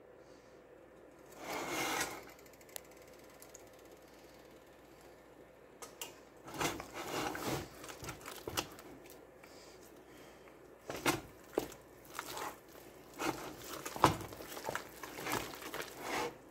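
Wooden spoon beating thick egg-and-flour dough by hand in a stainless steel pot: irregular squelching, scraping strokes, one to two a second, starting about six seconds in as a freshly added egg is worked into the dough. One short noise comes about two seconds in.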